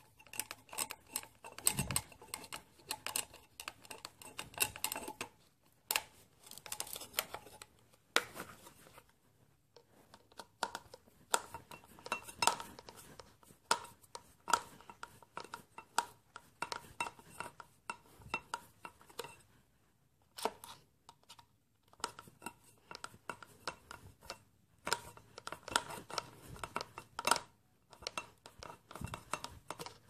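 Steel screwdriver blades clicking, scraping and prying against the plastic housing of a washing-machine drain pump as it is forced apart: irregular clicks and scrapes with a light metallic ring, pausing twice.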